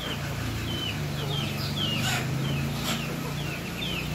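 Chickens feeding at a tray of rice bran, with a steady run of short, high, falling peeps, two or three a second, over a low steady hum.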